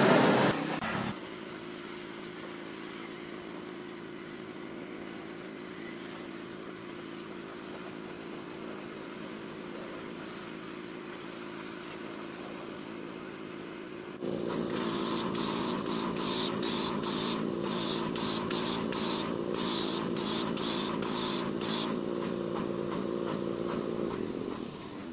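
High-pressure washer running steadily, its water jet hissing against a pickup's steel cargo cage. About halfway through it gets louder and brighter, with a rapid pulsing in the hiss, then fades away near the end.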